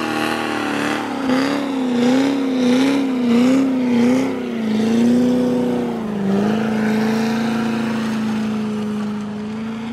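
Chevrolet Corvette C4's V8 held at high revs during a burnout. The engine note wavers up and down several times, dips about six seconds in, then holds a steady pitch, over the hiss of spinning, smoking rear tyres.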